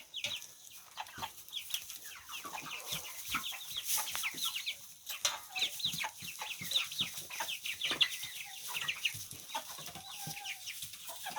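A flock of young chickens, about six and a half weeks old, peeping busily: many short, high, falling peeps overlapping one another, with scattered sharp clicks among them.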